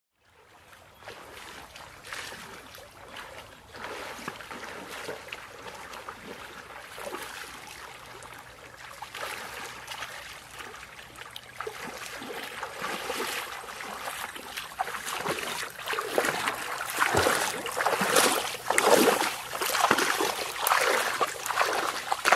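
Feet wading through a shallow stream, the water splashing and sloshing with each stride, getting louder toward the end.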